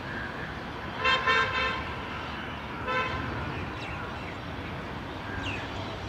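A vehicle horn honks twice: a longer toot about a second in and a short one near three seconds, over a steady low background rumble.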